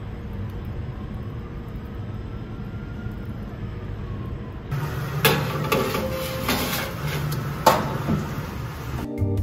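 A steady low rumble, then light clattering and knocks with one sharp click, like household objects being handled; music starts right at the end.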